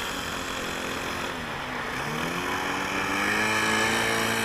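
Model airplane glow engine, an OS .91 FX two-stroke, running at high throttle as the RC plane rolls over grass and takes off. Its pitch dips briefly, then climbs and holds higher.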